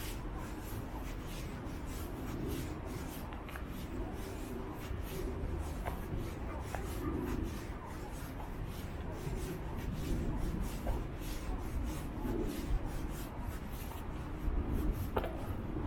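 Footsteps crunching on a gravel trail at a steady walking pace, about two steps a second, over a low rumble.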